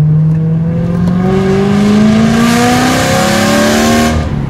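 BMW E92 M3's 4.0-litre V8 through a valved IPE exhaust, heard from inside the cabin, accelerating hard: the engine note climbs steadily in pitch and grows raspier, then drops away briefly near the end.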